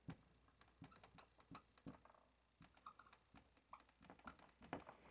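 Faint, irregular taps and short scratches of a dry-erase marker writing on a whiteboard.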